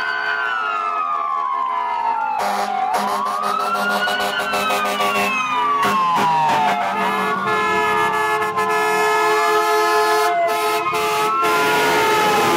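Several fire trucks' sirens wailing together, each rising and then falling slowly in pitch and overlapping one another, over steady held horn tones, as the trucks drive past.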